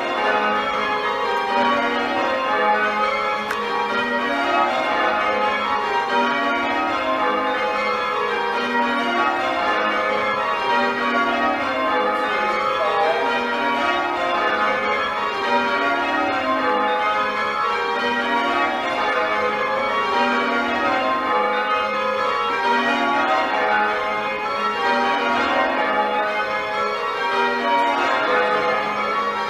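Church tower bells rung in changes by a band pulling the ropes: a ring of bells struck one after another in a steady, continuous rhythm, the runs of strikes repeating row after row.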